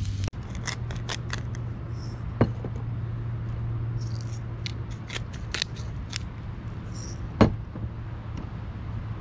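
Scattered small clicks and scrapes of a plate and food being handled at a table, with two sharper knocks about two and a half and seven and a half seconds in, over a steady low hum.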